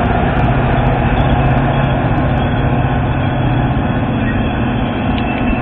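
EMD F40PH diesel locomotive pushing a commuter train away from the station, its engine running steadily under load with rolling noise from the train, fading slightly as it goes.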